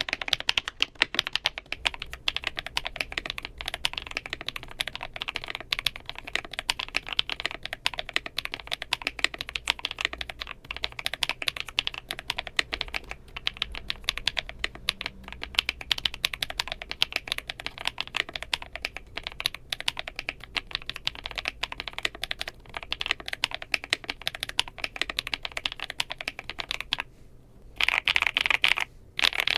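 Typing test on a Furycube E68 mechanical keyboard with lubed switches and tuned stabilizers: a fast, continuous run of key clacks, with a brief pause about 27 seconds in before the typing resumes.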